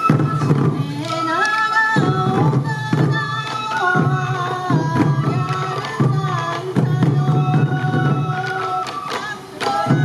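Traditional sansa odori music: sansa daiko drums, worn by the dancers, struck in a steady beat about once a second, under a bamboo flute melody of held notes that step up and down.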